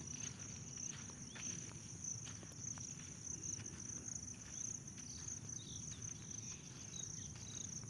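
Faint, scattered small metal clicks as a nut is turned by hand onto a bolt of a Wabco truck air brake booster. A steady high-pitched whine runs underneath.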